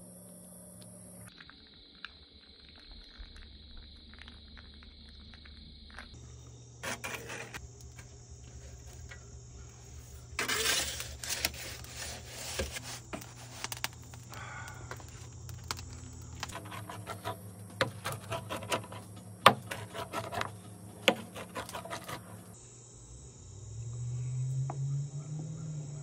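Crickets chirping steadily, with scattered clicks, taps and scrapes from handling the food and the metal pizza peel.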